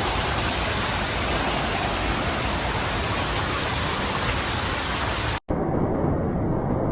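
Waterfall rushing steadily, a loud even hiss. About five and a half seconds in it cuts out abruptly for a split second, then a duller rushing noise carries on.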